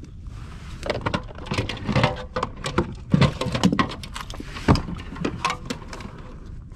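Handling clatter on a kayak: a landing net and a plastic fish measuring board being moved about, giving a string of irregular clicks, knocks and rattles, loudest about three and a half and four and a half seconds in.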